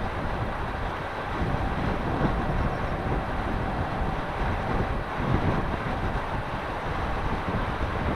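Wind buffeting an outdoor microphone in uneven gusts, with a faint steady high tone underneath.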